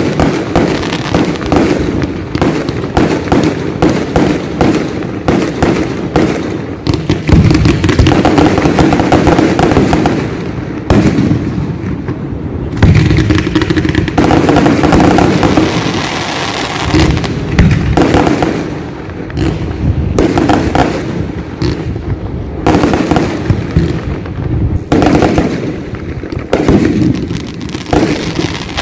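Fireworks going off: aerial shells bursting in rapid, overlapping bangs and crackles, with dense, loud stretches about eight and thirteen seconds in.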